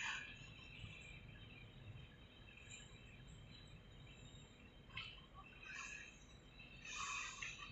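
Faint low rumble of a slow-moving car-carrier freight train rolling past, with short high-pitched squeaks coming and going at the start, about five seconds in and near the end.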